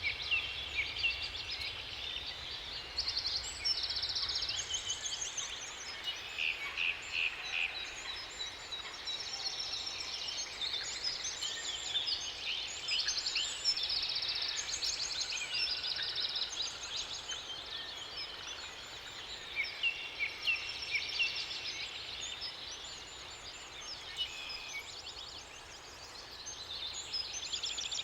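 Several songbirds singing over one another, a dense chorus of quick trills and chirps, over a faint steady background hiss.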